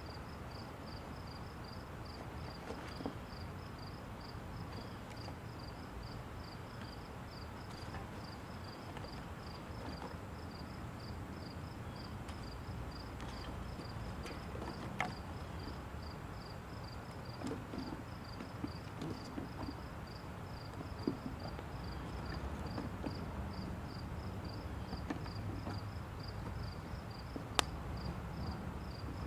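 Small split-wood campfire of kindling and fatwood shavings burning as it catches, with occasional sharp crackles and pops over a steady low rumble.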